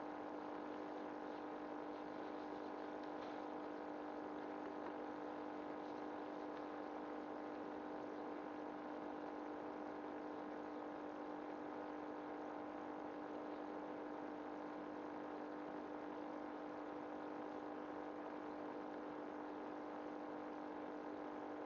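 Steady mechanical hum with one strong low tone and fainter higher tones above it, unchanging throughout.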